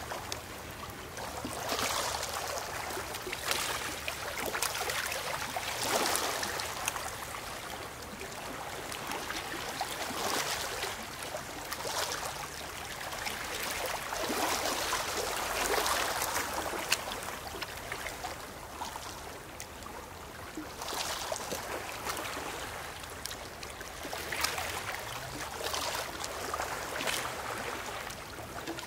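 Small sea waves washing over a pebble shore: a steady rush of water that swells and eases every few seconds.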